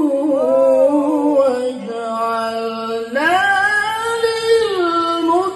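A man reciting the Quran in the melodic tilawah style. A long held note with a wavering ornament closes the phrase 'qurrata a'yun', sinking to a lower held tone. About three seconds in a new phrase, 'waj'alna', begins with a rise and is held.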